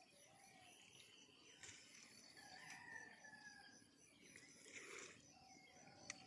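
A rooster crowing faintly, one drawn-out crow about halfway through, over faint high-pitched insect chirring.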